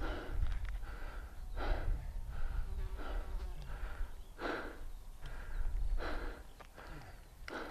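A cyclist breathing hard and rhythmically, a strong exhale about every one and a half seconds with fainter inhales between, over a low rumble.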